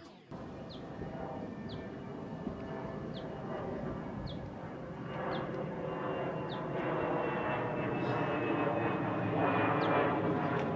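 Quadcopter drone's motors and propellers whirring in a steady hum of several tones, growing louder about halfway through.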